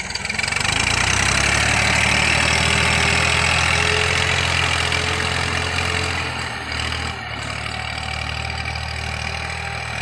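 Massey Ferguson tractor's diesel engine running steadily under load as it pulls a tine cultivator through the soil, swelling in the first second and easing off a little after about six and a half seconds as the tractor moves away.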